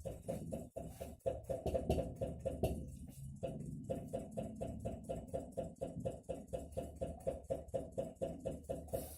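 Atlant refrigerator knocking rapidly and evenly, several knocks a second over a low steady hum, with a brief pause about three seconds in. This is the fault that recurs in the evening hours even with a voltage stabilizer fitted.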